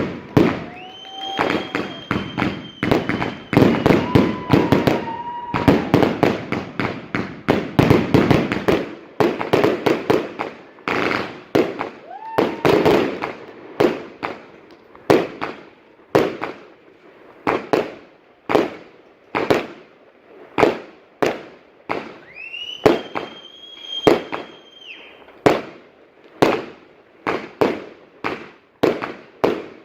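Fireworks display: a dense barrage of bangs and crackling through the first half, thinning to single bangs about once a second, with a few whistles that rise and then hold their pitch.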